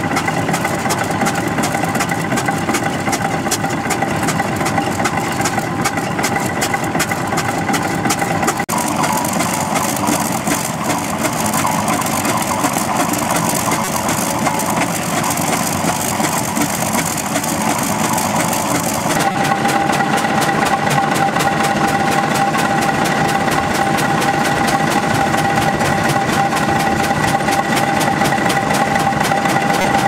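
Fowler steam ploughing engine running under load, its flywheel turning and winding drum hauling in the plough cable: a loud, continuous mechanical clatter with a rapid even beat and a steady whine. The sound changes abruptly about nine and nineteen seconds in, the whine dropping away and then returning.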